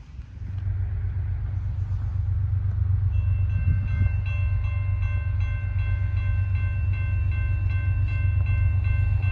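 Railroad grade-crossing warning bell starts ringing about three seconds in, a rapidly repeating electronic ding, over a steady low rumble.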